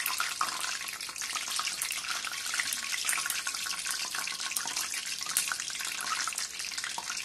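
Curry leaves sizzling and crackling in hot oil in an iron wok: a steady hiss dotted with many small pops.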